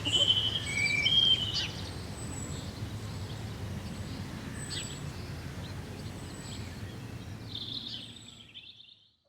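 Early-morning farm ambience: songbirds chirping and whistling over a steady low background rumble, the whole fading out to silence near the end.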